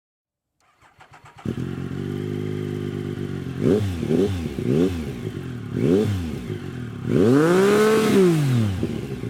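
Triumph Daytona 955i's 955cc three-cylinder four-stroke engine starting on the starter motor, catching about a second and a half in and idling. It is then revved in four quick throttle blips and one longer rev that rises and falls near the end, before dropping back to idle.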